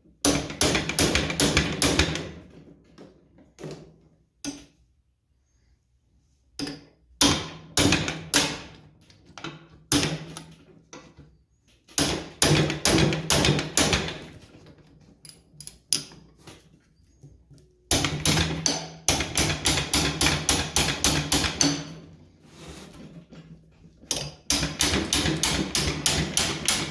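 Runs of rapid metallic clicks and taps from hand tools working a seized bolt on a vintage Scotts reel mower. There are about five bursts of a couple of seconds each, separated by short pauses.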